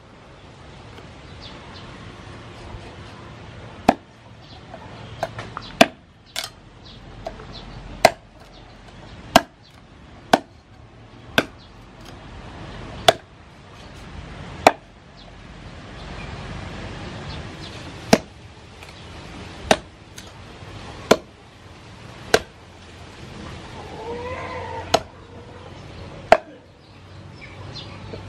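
Meat cleaver chopping raw pork leg on a round wooden chopping block: single heavy strikes at an uneven pace, about one every one to two seconds, now and then two in quick succession.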